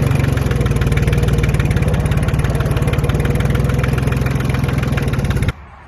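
Heavy engine running at a steady speed with a fast, even pulse, cut off abruptly about five and a half seconds in.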